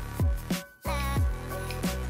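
Background music with deep bass notes that slide down in pitch. It cuts out briefly just under a second in, then resumes.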